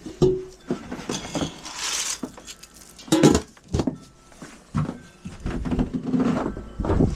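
Irregular knocks, clinks and clatter of hard objects being handled in a small enclosed space, with the loudest clatter about three seconds in.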